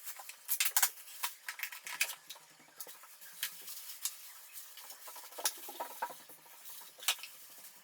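Scattered light clicks, taps and rustling of plastic being handled, as a robot vacuum's dust bin is taken out and opened to check the debris collected.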